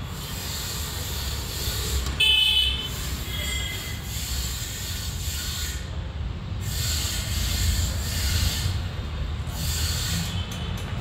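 Steady low rumble of outdoor background noise, with a short high-pitched toot, like a vehicle horn, about two seconds in and a fainter one a second later.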